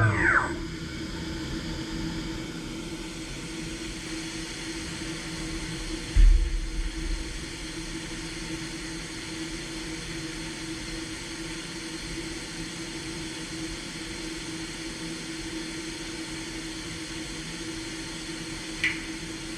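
CNC milling machine spindle winding down at the start, its pitch falling away, then the machine humming steadily with one constant tone. A heavy thump about six seconds in and a short click near the end.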